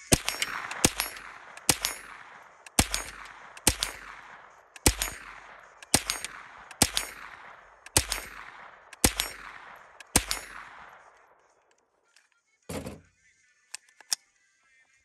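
AR-15-style rifle fired in slow, steady semi-automatic shots, eleven in all at about one a second, each shot followed by a long fading echo. About two seconds after the last shot comes a short dull thump, then a couple of faint clicks.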